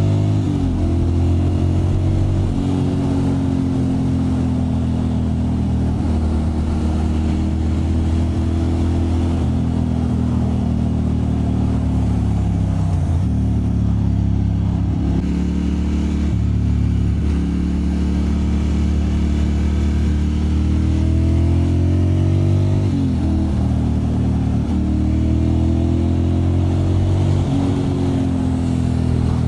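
2001 Ducati Monster M600's air-cooled L-twin engine running under way, its pitch climbing with the throttle and dropping sharply several times at gear changes and roll-offs.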